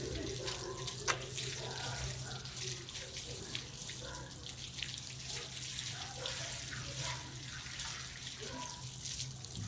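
Running water from a shower hose splashing steadily while a dog is washed, over a steady low hum, with one sharp click about a second in.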